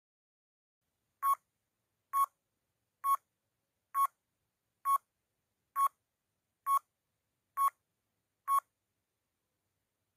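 Countdown timer sound effect: nine short electronic beeps, a little under a second apart, marking the seconds as the timer runs down.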